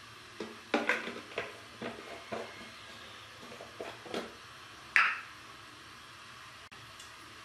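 Cooking oil heating in a metal kadai on a lit stove: a faint steady hiss with scattered small crackles and clicks, and one sharper click about five seconds in.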